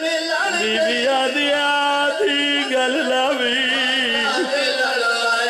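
Male voices chanting a Punjabi Shia mourning lament (wain) into microphones: long held, wavering notes that slide from one pitch to the next without a break.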